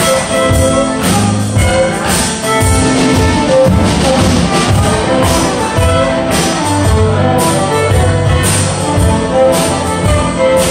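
Live contra dance music from a fiddle, keyboard and percussion trio: a fiddle tune with keyboard accompaniment over a steady beat.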